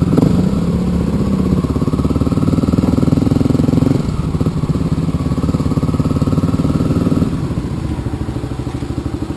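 Motorcycle engine running under throttle, easing off about four seconds in and settling to a low, pulsing idle about seven seconds in.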